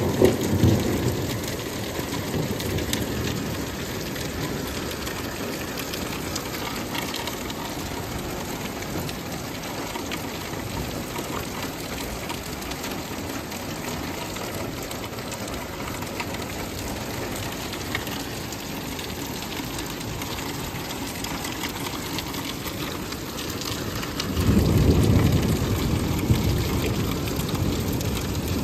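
Steady heavy rain falling on a street and parked cars, an even hiss. A deep rumble fades out in the first couple of seconds, and another swells up sharply about 24 seconds in and carries on.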